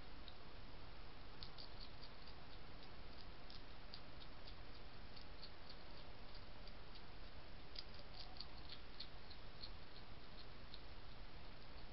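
European hedgehog crunching dry kitten biscuits from a feeding dish: an irregular run of small, crisp crackling chews over a steady background hiss.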